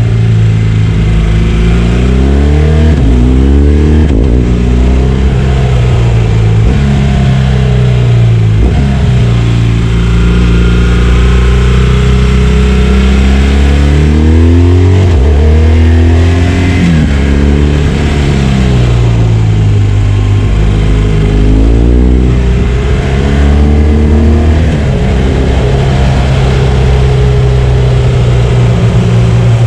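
BMW R1200 GS boxer-twin engine under way. The pitch climbs as it pulls, then drops, many times over: about every few seconds it falls sharply and starts climbing again.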